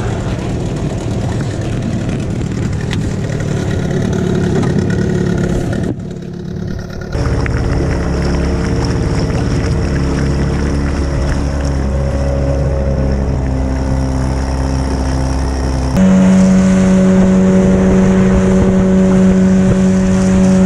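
Outboard motor driving a small boat at speed: a steady engine drone that jumps abruptly to a new pitch a few times, loudest and highest-pitched in the last few seconds.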